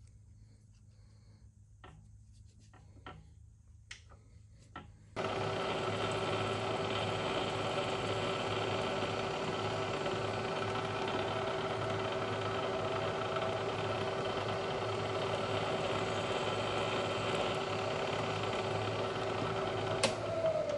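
A few light clicks, then a Bridgeport milling machine's spindle starts abruptly about five seconds in and runs at a steady, even pitch, used for drilling and reaming the guide-pin holes in an aluminum vise jaw. A sharp click comes just before it shuts off at the end.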